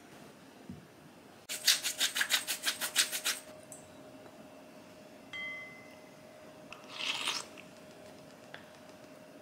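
A pepper mill grinding in quick, even crackles for about two seconds. About two seconds later a light clink rings briefly, then a short scrape as rice is spooned from a glass bowl.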